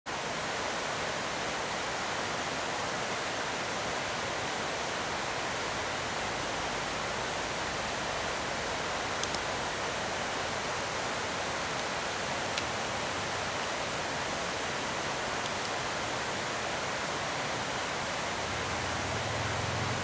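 Steady, even rushing noise with a few faint ticks in the middle; a low hum comes in near the end.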